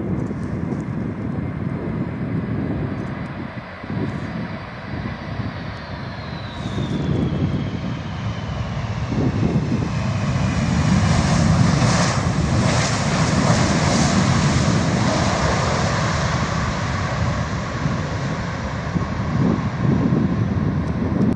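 Four-engined Boeing 747 freighter's jet engines passing close on landing, a high fan whine sliding down in pitch as it goes by. The engine noise then swells louder for several seconds as the jet rolls out on the runway after touchdown.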